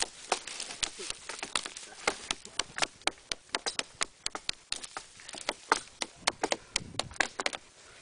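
Axes chopping the branches off a felled spruce trunk (snedding): quick, irregular sharp strikes, several a second, some overlapping as more than one axe works.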